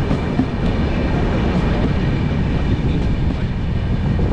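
Steady running rumble of the Duronto Express passenger train, heard from inside a coach.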